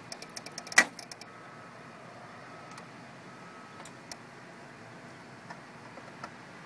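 Small screwdriver working the screw terminals of a generator controller's terminal strip: a quick run of small metal clicks and taps in the first second or so, then only a few faint ticks over a steady low hiss.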